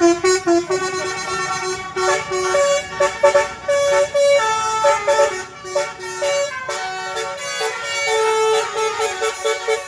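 BASURI telolet multi-tone bus horn playing a quick melody: a run of short, bright horn notes that switch pitch several times a second. It starts suddenly and keeps playing without a break.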